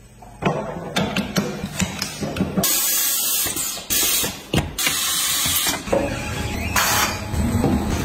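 Pneumatic tyre-changing machine at work demounting a tyre from an alloy wheel: three bursts of air hissing, with metal clicks and clanks between them.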